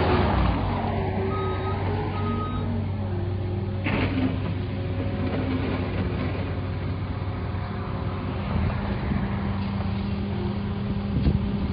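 A motor vehicle's engine running steadily, with two short beeps of a reversing alarm a second or two in and a single knock about four seconds in.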